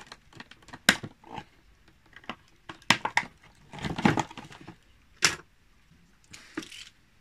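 Hands handling a plastic dinosaur action figure and its box: scattered clicks, taps and short rustles of plastic and cardboard.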